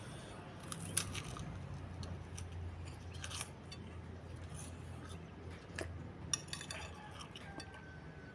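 Eating with metal cutlery: a spoon and fork clicking and scraping against a bowl of meatball and noodle soup, in scattered sharp clicks, the loudest about a second in and again near six seconds.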